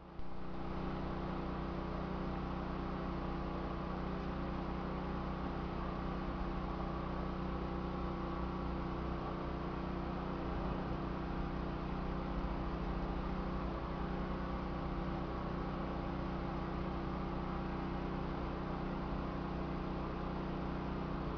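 A steady, unchanging low hum with an even layer of hiss over it, like a motor or machine running nearby.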